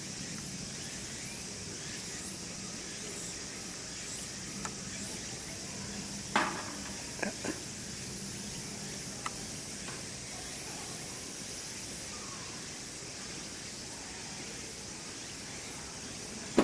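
Steady outdoor background hiss with a few short sharp knocks, the loudest about six seconds in and two smaller ones a second later.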